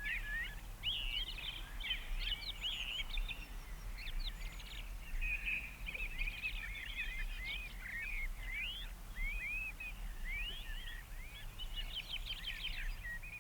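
Birds chirping, many quick calls overlapping and sweeping up and down in pitch, with a faint low hum underneath.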